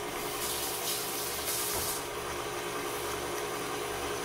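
KitchenAid stand mixer running steadily, its wire whip beating cheesecake batter of cream cheese and eggs in a glass bowl. Two short bursts of hiss come in the first two seconds.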